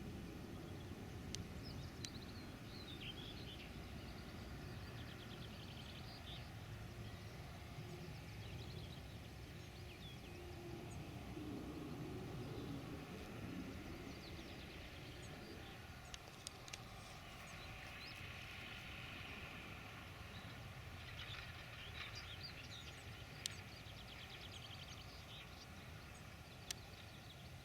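Faint, steady low rumble of John Deere 6930 diesel tractors at work, with small birds chirping over it and a few sharp clicks.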